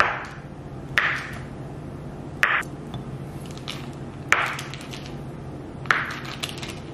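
Kitchen knife cutting a stick of butter into pieces on a wooden cutting board: the blade knocks on the board five times, about one every second and a half.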